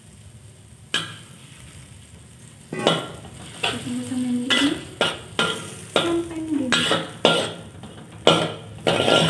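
Spatula scraping and knocking against a wok, stir-frying chopped chilies, tomato and shallots in hot oil. A faint sizzle with a single click about a second in, then from about three seconds in a quick run of repeated scraping strokes.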